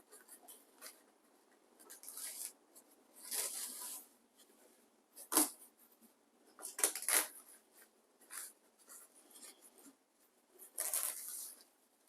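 Intermittent rustling and scraping of material being handled, with a sharp click about five seconds in.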